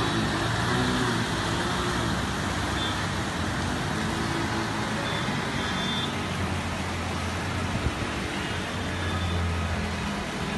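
Steady rushing noise of floodwater and rain on a waterlogged street, with the low hum of vehicle engines moving through the water, strongest in the second half.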